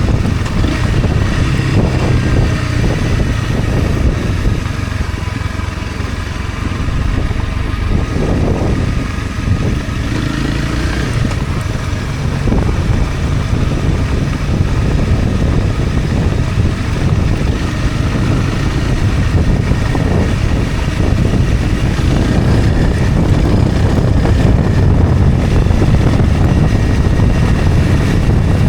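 Honda CRF250 Rally's single-cylinder four-stroke engine running as the motorcycle rides downhill on a mountain road, a steady low rumble throughout.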